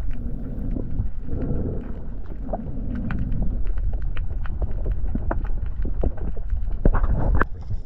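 Underwater sound picked up by a diver's camera: a continuous low, muffled rumble of water moving around the camera, dotted all through with scattered sharp clicks and ticks.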